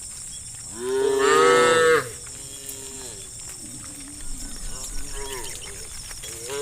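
Cows mooing: one loud, long moo about a second in, then a few fainter moos from other animals, and another loud moo beginning at the end.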